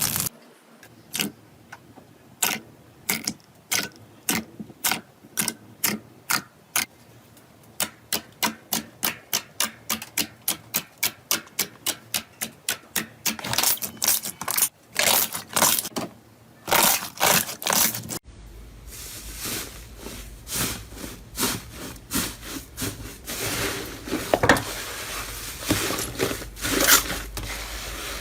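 Slime being worked by hand, giving a long run of short, sharp pops, about three a second through the middle stretch. After an abrupt cut about two-thirds of the way in, a steady rustling with irregular louder crackles takes over.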